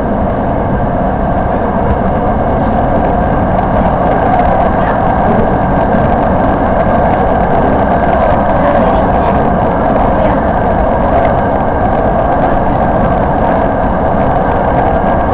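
Steady running noise of a Toyo Rapid Railway 2000-series electric train heard from inside the cab, its wheels rolling on the rails at speed.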